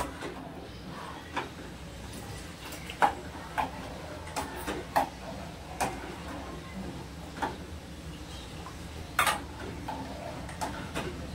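Irregular light clinks and knocks of kitchen utensils against a cooking pot, over a steady low hum.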